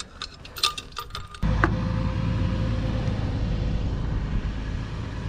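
A few light metallic clinks, then about a second and a half in a car's engine is heard running steadily with a low rumble.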